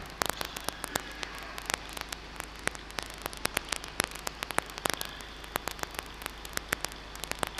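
Crackling static: sharp, irregular clicks several times a second over a steady low mains hum, the electrical noise of the sound system or recording.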